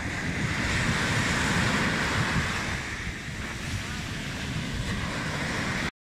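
Mediterranean sea waves breaking and washing up the sandy shore in a steady hiss, with wind buffeting the microphone in a low rumble. The sound cuts off suddenly just before the end.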